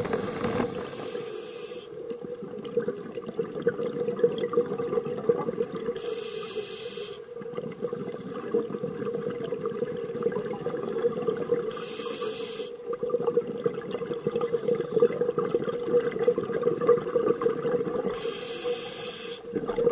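Scuba diver breathing underwater. A regulator hiss comes about every six seconds, each about a second long, with continuous bubbling noise between.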